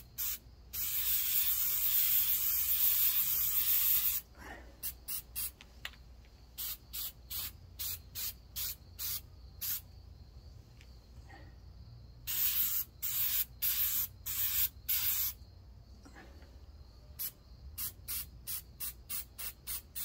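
Aerosol can of Flex Seal rubberized coating spraying onto a lead weight. First comes one continuous hiss of about three seconds, then many short quick puffs, with a closer run of longer bursts about twelve seconds in.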